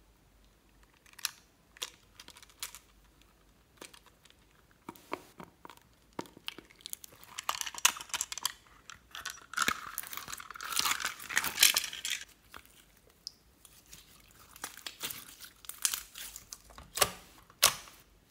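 Pink slime pulled by hand out of a plastic container and pressed onto clear slime, making sticky crackling and tearing sounds that are densest in the middle, with scattered sharp clicks from the plastic container near the start and end.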